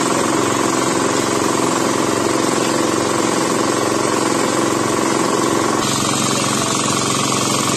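An engine running steadily and loudly without letting up, with a fast, even rhythm. Its tone shifts slightly about six seconds in.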